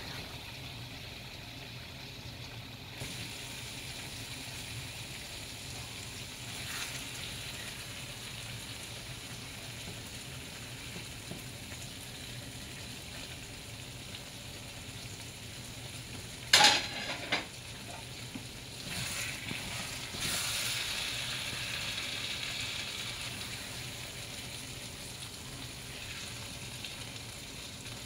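Stir-fried chicken and vegetables sizzling softly in a hot nonstick pan as metal tongs stir and lift them out, with two sharp clinks of the tongs about sixteen and seventeen seconds in.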